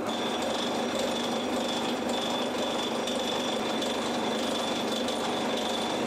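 Metal lathe running steadily while a twist drill in the tailstock bores into the end of a spinning high-tensile steel crankshaft blank, drilling the hole for an M4 thread. A steady high whine sits over the running noise.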